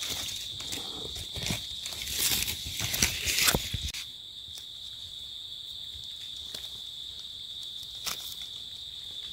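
A steady, high-pitched insect drone of forest crickets or cicadas, with rustling and crunching in dry leaf litter during the first four seconds, then the drone almost alone with a couple of faint clicks.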